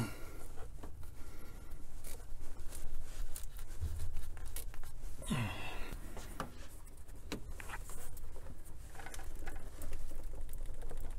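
Pliers working a stuck rubber fuel hose back and forth to free it from its metal sleeve: scattered small clicks and scrapes of metal tool on hose and fitting, with a brief falling squeak about five seconds in.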